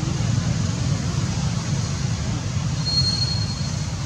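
Steady low rumble of wind buffeting the microphone, with one brief, thin high-pitched squeak about three seconds in.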